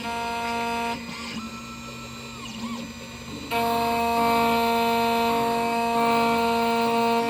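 Xhorse Condor Dolphin XP-005 key cutting machine running an automatic cut on a laser-cut key blade, its spindle giving a steady whine. The whine drops away about a second in, leaving quieter machine noise, and comes back after a couple of seconds.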